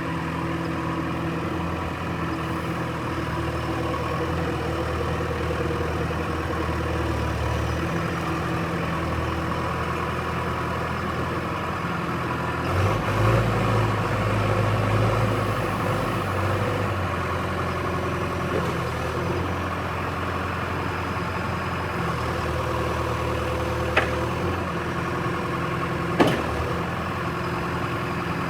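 John Deere 310E backhoe's diesel engine idling steadily. About halfway through it revs up briefly for a few seconds, then settles back to idle. Two sharp clicks or knocks sound near the end.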